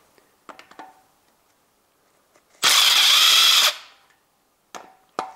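Makita 18 V cordless power tool running in one loud burst of about a second, spinning a camshaft bearing cap bolt loose. Light clicks of the socket being set on the bolts come before and after it, and a second burst starts right at the end.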